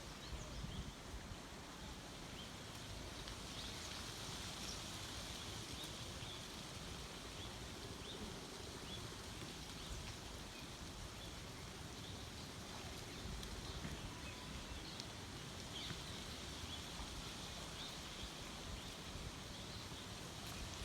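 Faint rural outdoor ambience: a steady hiss with scattered faint, high chirps of distant birds.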